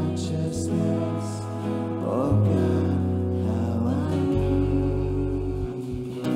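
A slow worship song: a woman singing lead over a small band of acoustic guitars, bass and keyboard, with long sustained low notes underneath.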